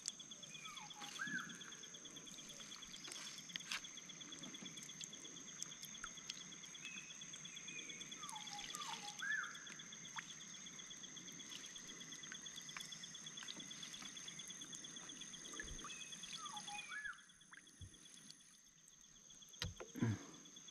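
A steady, high insect chorus with one finely pulsing tone, and a bird repeating a short falling call three times, about seven to eight seconds apart. Scattered light clicks and knocks come from a net being hauled into a wooden canoe.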